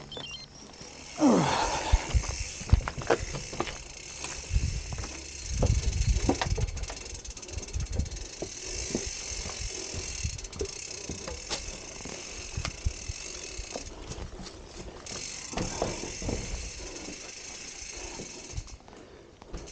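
A gravel bike being wheeled over rough ground and handled, its rear freewheel ticking, with irregular rattles and knocks from the bike, under a steady high hiss.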